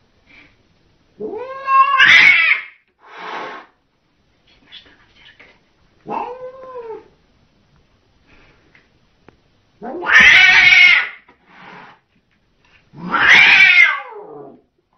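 A domestic cat caterwauling at its own reflection in a mirror, taking it for a rival cat. It gives four long, drawn-out yowls that rise and fall in pitch, the loudest about ten seconds in, with short breathy sounds between them.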